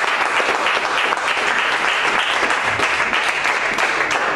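Congregation applauding: a loud, dense, steady round of clapping.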